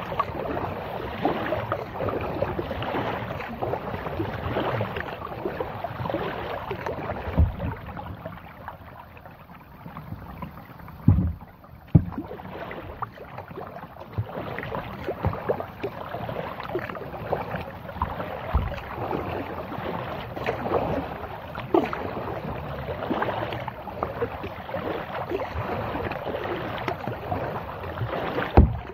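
Kayak being paddled, water splashing and lapping against the plastic hull in an uneven wash, with a few dull knocks along the way.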